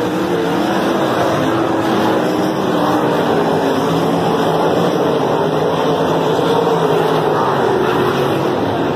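Several winged sprint cars' V8 engines racing on a dirt oval: loud, continuous engine noise whose pitches rise and fall as the cars power around the track.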